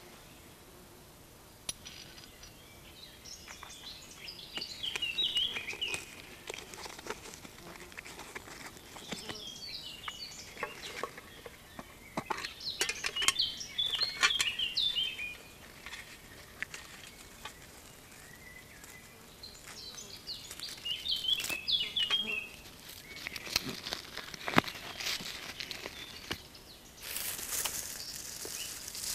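A songbird singing in short warbling phrases every few seconds, with small snaps and crackles of dry twigs and grass being handled close by. Near the end the handling turns into a louder rustle.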